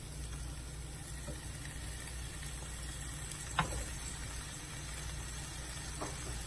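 Raw boneless chicken pieces tipped from a bowl into a frying pan of onion-tomato masala, with a sharp knock about three and a half seconds in and a lighter one near six seconds, over a steady low hum.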